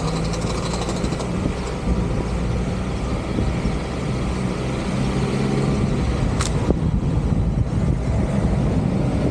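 Vehicle engine running steadily while driving through street traffic, with road noise. A brief sharp click about two-thirds of the way through.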